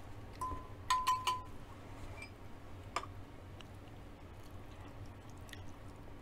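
Metal spoon clinking against a glass baking dish of soup: a cluster of quick clinks with a brief ring about a second in, then one more tap near the middle.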